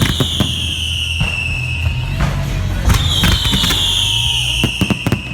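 Fireworks going off: sharp bangs and crackles, with a whistle that falls in pitch for about a second and recurs roughly every three seconds, over a steady low rumble.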